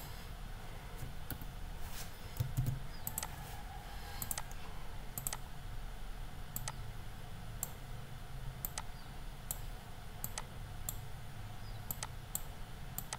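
Scattered sharp clicks from a computer mouse and keyboard, irregular and roughly one every second, over a faint low hum.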